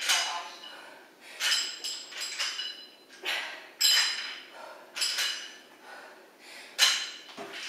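Pair of metal dumbbells clinking and knocking about once a second as they are set down and lifted again in a repeated exercise. Each knock rings briefly.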